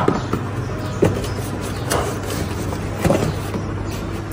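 Glass cups and a cardboard box being handled: four short knocks and rustles about a second apart, over a steady low hum.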